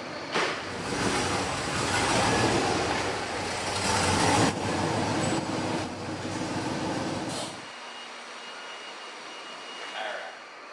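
A car engine running, louder and fuller for several seconds, then stopping abruptly about three-quarters of the way in.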